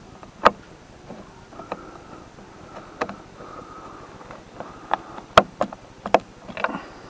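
Irregular sharp clicks and knocks of a metal socket extension tapping against the car door's inner frame while a door-mirror screw is worked into a hard-to-reach spot. The loudest knock comes about five and a half seconds in.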